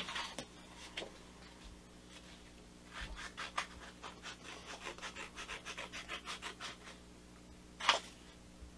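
Scissors snipping through paper: a quick run of small snips, several a second, from about three seconds in to about seven, with one louder noise near the end.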